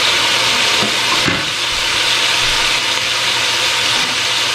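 Pot of crab and vegetables sizzling and hissing steadily on the stove as it steams.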